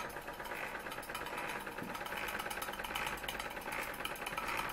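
Bowman M101 model stationary steam engine running steadily, its exhaust chuffing in a rapid, even beat.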